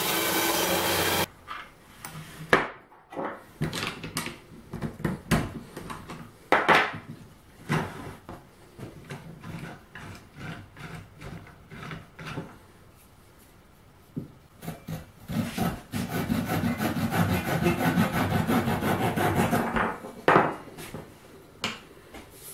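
Power tools running (table saw and the drill that spins the leg in the jig) cut off abruptly about a second in. Then scattered knocks of wooden parts being handled on a workbench, and several seconds of steady scraping on wood late on, ending with a sharp knock.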